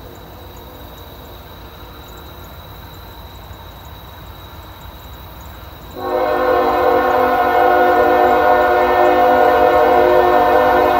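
Locomotive air horn of an approaching CSX freight train, one long blast that starts suddenly about six seconds in: a loud chord of several steady tones, held until near the end. Under it the crossing's electronic warning bell rings steadily over a low rumble from the train.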